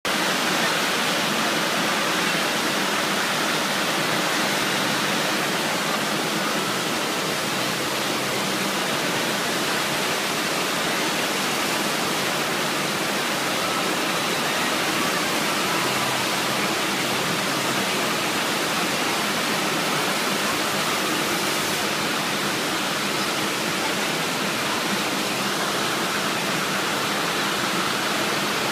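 FlowRider surf simulator: a thin sheet of pumped water rushing steadily over the ride surface, an unbroken hiss-like rush at a constant level.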